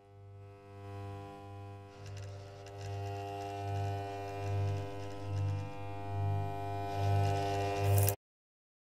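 An eerie electric hum drone with a low throbbing pulse about once a second, swelling steadily louder and then cutting off abruptly about eight seconds in.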